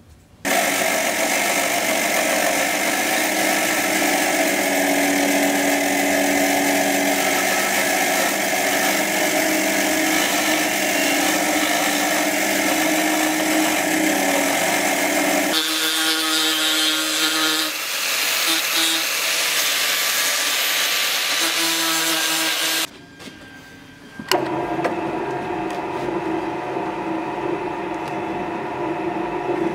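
Benchtop band saw running and cutting through a small block of wood, its sound changing abruptly about halfway through. After a brief dip, a drill press runs steadily as its bit bores into the wood held in a machine vise.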